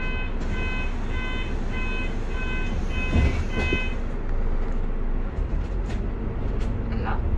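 A bus's electronic warning beeper sounds about twice a second for roughly four seconds, then stops. Under it runs the bus's steady low engine and road rumble, with a thump a little past three seconds in.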